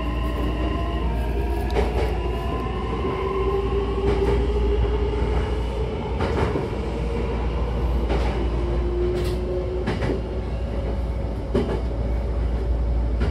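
Hankyu electric commuter train pulling away and gathering speed, heard from inside the car: the traction motors' whine rises in pitch over the first few seconds over a steady rumble of wheels on rail. A few sharp clicks from the wheels crossing rail joints come through the middle and latter part.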